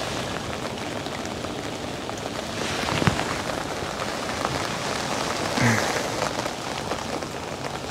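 Heavy rain falling steadily on an umbrella overhead and on the water, with a single sharp knock about three seconds in and a short low falling sound just before six seconds.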